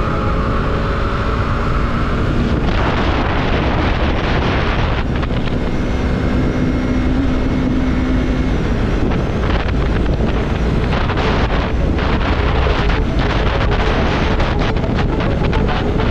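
Yamaha MT-03's 321cc twin-cylinder engine running while riding, heavily masked by steady wind noise buffeting the helmet or body-mounted camera microphone.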